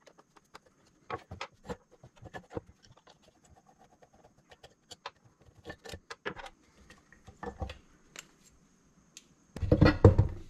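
Small metallic clicks and taps of a screwdriver, screws and hand tools on a wooden workbench while parts are taken off a Briggs and Stratton Vanguard engine. Near the end comes a louder clatter and knocking as the ring-geared flywheel is pulled off the engine.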